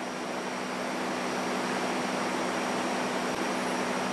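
Diesel locomotive hauling passenger coaches toward the platform: a steady engine drone with a low hum, growing slowly louder as the train nears.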